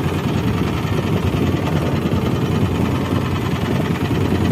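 A small fishing boat's engine running steadily at trolling speed, a constant low drone with a rattling vibration.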